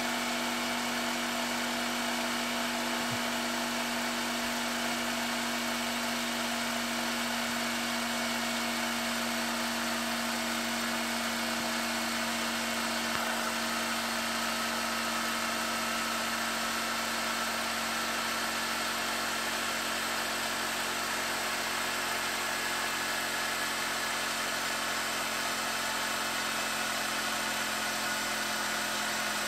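Philips VR550 VHS deck's tape transport winding a TDK E300 cassette at high speed with the tape unthreaded, a steady mechanical whir and hum. A faint whine rises slowly in pitch as the reels' speeds change with the tape moving from one reel to the other.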